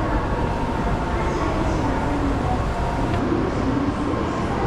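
Busy Shinkansen station ambience: a steady low rumble of trains and station machinery, with indistinct voices mixed in.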